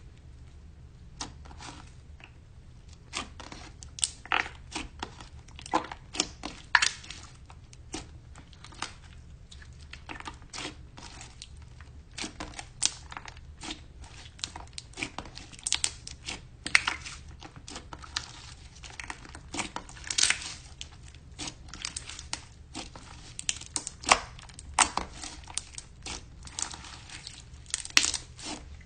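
Slime being squeezed and worked by hand, making irregular sticky clicks and pops, some much louder than others.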